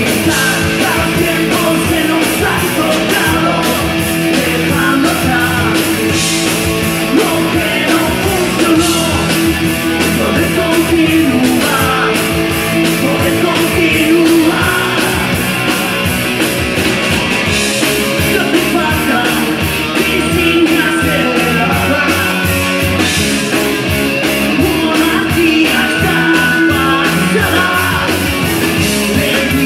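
Live rock band playing loudly and steadily: electric guitars, bass and a drum kit, with a male lead vocal, heard from the crowd in a club.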